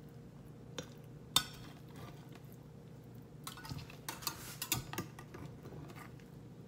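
Slotted metal spatula and fork clinking and scraping against a glass baking dish while an enchilada is worked loose and lifted out: a sharp clink a little over a second in, then a run of clinks and scrapes from about three to five seconds in.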